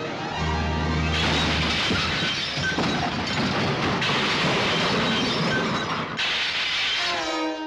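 Cartoon orchestral score overlaid by a long, loud crashing sound effect that lasts several seconds, then falling string glides near the end.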